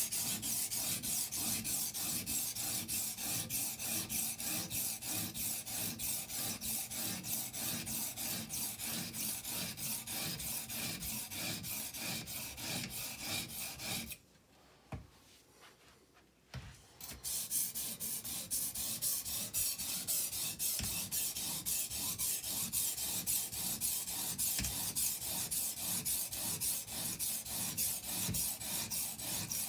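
Edge Pro Apex sharpener's 220-grit stone rasping back and forth along a chef's knife edge in quick, even strokes, sharpening the edge at 21 degrees after the blade was thinned. The strokes stop for about two seconds midway while the knife is turned to the other side, then carry on.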